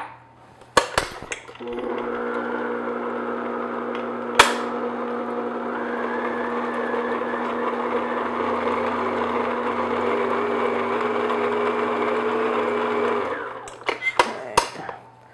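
Electric stand mixer beating cake batter in a glass bowl. After a few knocks it starts about a second and a half in, runs at a steady hum with one sharp knock partway through, and stops near the end, followed by a few clicks.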